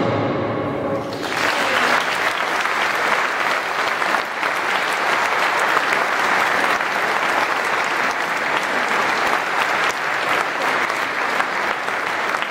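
The last chord of a wind band fades away, and about a second in the audience breaks into steady applause that carries on.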